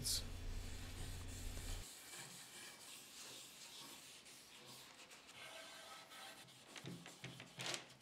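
Faint rubbing of a cloth pad wiping oil-based finish onto a walnut surface, in soft uneven strokes with a louder stroke near the end.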